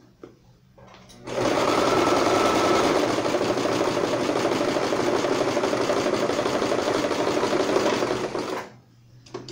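Electric home sewing machine stitching a seam through fabric, running at a steady speed; it starts about a second in and stops near the end.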